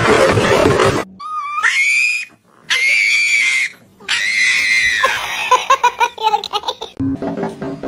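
After a second of loud electronic music, a pug screams dramatically: three long high-pitched wails, each rising and then held, followed by a quick run of short cries.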